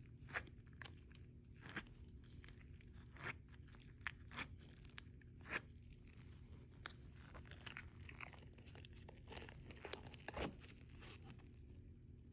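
Mac-and-cheese slime with macaroni pieces being worked and pulled by hand, giving faint, irregular clicks and crackles.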